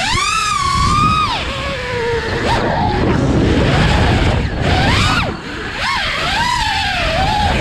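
FPV drone's motors whining, the pitch shooting up at the start and swooping up and down several times as the throttle changes, over a low rush of wind on the microphone.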